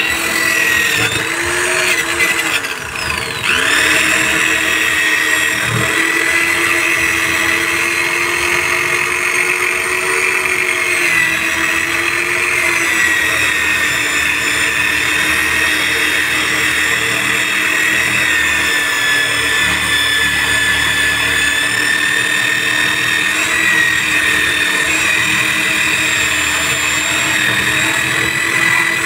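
Electric drill spinning a buffing wheel against the rubber inner liner of a tubeless car tyre, roughening the area around the cut so a patch can be fitted. Its steady motor whine slows and picks up again about three seconds in, then wavers slightly as it is pressed on.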